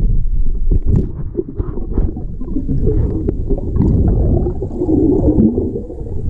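Underwater noise picked up by a submerged camera: a steady low rumble of water moving around the housing, with scattered small clicks and pops and a louder gurgle a little past the middle.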